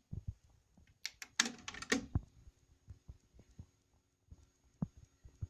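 Faint steady hum and light mechanical clicking from a Teac W-600R double cassette deck running a tape, with a dense burst of clicks and rustling about a second in.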